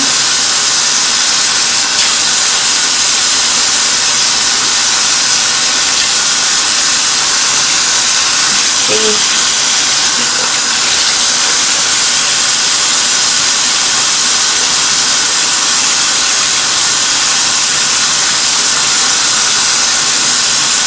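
Bathroom tap running steadily into a sink: a constant, even hiss of falling water.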